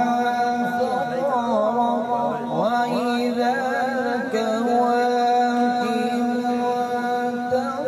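Melodic Quran recitation (tilawat) in Arabic: a single voice holding long notes with wavering, ornamented turns.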